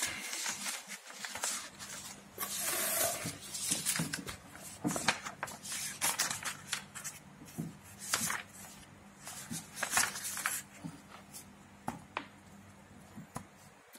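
Pages of a thick bound book being flipped and turned by hand: a run of irregular papery swishes and rustles with the odd light flap.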